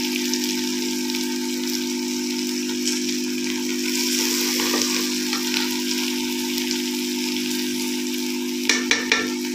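Okra and chicken pieces sizzling steadily as they fry in a metal pot, over a steady low hum. Near the end a steel ladle scrapes and clinks against the pot a few times as the pieces are turned.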